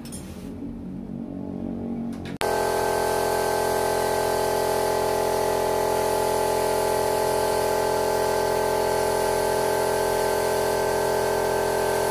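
Small portable air compressor running: a steady motor whine over hiss. It comes in abruptly about two seconds in, after a quieter low hum.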